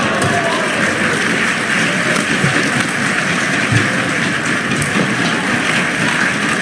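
Arena crowd cheering and applauding steadily, a dense hiss of clapping and voices.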